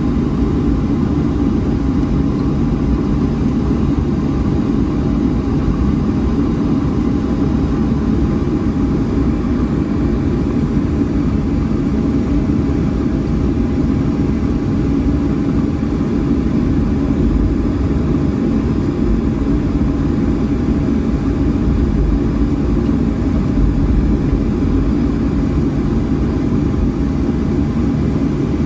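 Inside the cabin of a Boeing 737 taxiing after landing: the jet engines at idle make a steady low rumble with a thin, steady whine above it.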